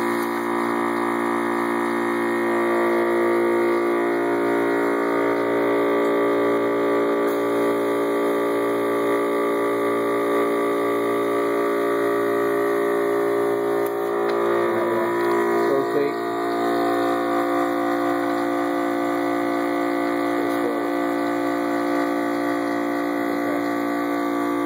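Steady electric hum of the vacuum pump that supplies the robot's suction cups, made of several fixed tones that run without a break. A few faint, brief chirps come in about two-thirds of the way through.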